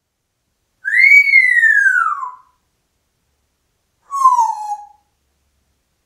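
African grey parrot whistling twice: a long whistle about a second in that rises briefly and then slides down in pitch, and a shorter, lower falling whistle near the end.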